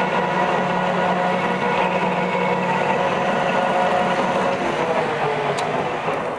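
Metal lathe running, its gearing giving a steady whine of several tones. Near the end the whine slides down in pitch as the spindle slows toward a stop.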